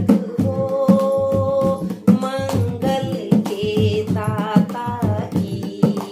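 A woman singing a Hindi devotional bhajan, accompanied by a hand drum and hand claps keeping a steady beat.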